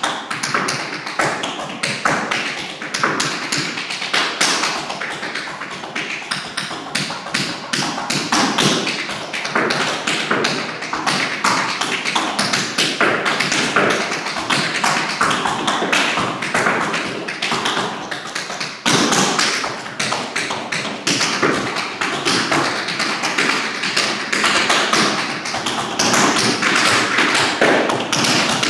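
Tap shoes' metal taps striking a hardwood floor in fast, dense improvised rhythms. The tapping eases briefly about two-thirds of the way through, then comes back suddenly louder.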